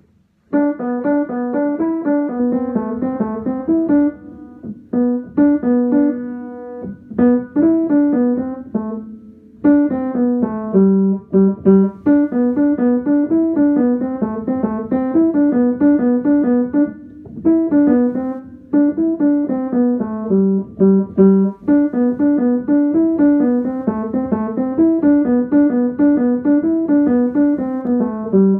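Upright piano played by hand: a simple melody in the middle of the keyboard, in short repeating phrases with brief pauses between them, starting about half a second in.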